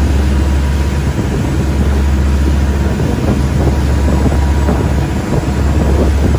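Fishing boat's engine running steadily under way, a constant low drone mixed with the rush of the churning wake and wind buffeting the microphone.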